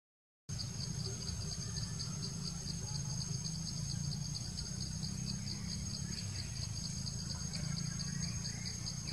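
Insects chirping steadily in rapid, evenly spaced high-pitched pulses, with a thin high insect whine above and a low rumble underneath. The sound cuts out completely for about half a second at the very start.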